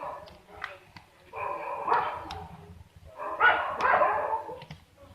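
A dog barking in the background: two drawn-out calls about two seconds apart.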